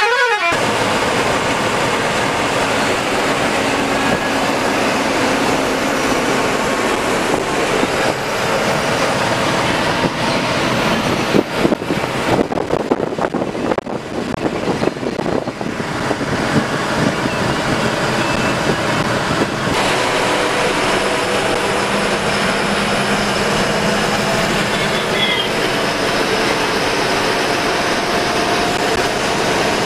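Ashok Leyland sleeper coach's diesel engine and road noise heard from the driver's cabin while the bus is under way: a steady, loud rumble.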